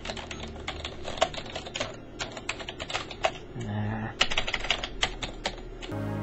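Typing on a computer keyboard: a fast, irregular run of key clicks with short pauses. Near the end the typing stops abruptly and music comes in.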